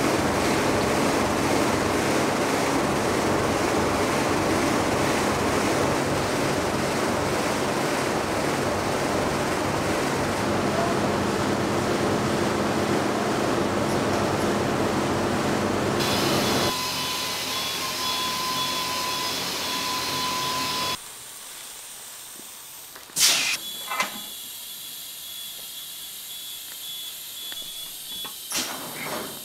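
Textile factory machinery running: a loud, dense, steady noise with several steady tones. A bit over halfway through it gives way to a quieter machine noise with a steady high whine. Later still it drops to a quiet room where a few sharp clicks and knocks sound.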